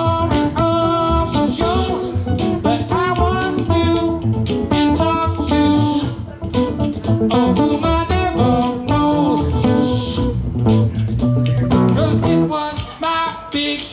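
Live blues band playing an instrumental passage, with electric guitar playing bending lead lines over bass guitar and drums.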